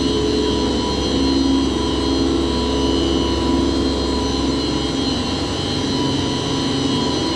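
Primary, secondary and condenser water pumps of an HVAC chiller plant running together: a loud, steady machine drone with a low hum and a higher, even whine.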